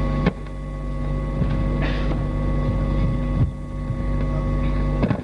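Steady electrical mains hum and buzz from the sound system, with a few faint knocks.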